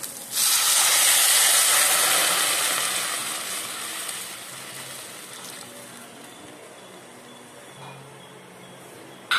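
Tamarind water poured into a hot pan of oil and sautéed shallots, setting off a loud sizzling hiss that starts suddenly about half a second in and dies away over the next five seconds or so. A brief sharp sound comes right at the end.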